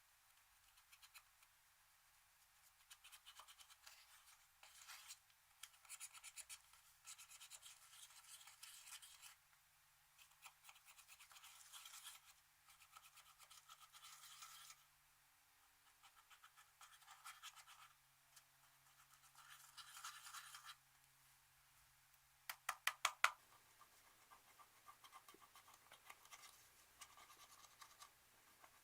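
Slime being squeezed and worked by hand: repeated bursts of fine crackling and popping, each a few seconds long, with a quick run of sharper, louder clicks late on.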